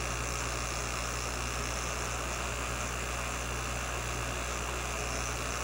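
Condensate pump in a fan coil unit running with a steady hum and chatter, drawing air as its inlet filter runs nearly dry.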